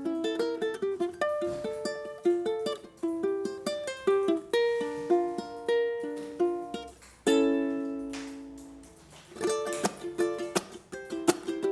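Pine-wood ukulele played solo, picking a melody of single plucked notes. About seven seconds in, a chord is struck and left to ring out and fade, then the picking starts again near the end.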